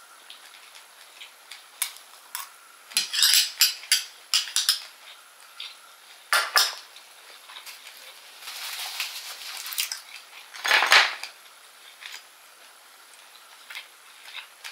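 Close-miked eating sounds: a metal spoon clicking against a small glass bowl and mouth-close chewing, coming as scattered clicks and short crackly bursts.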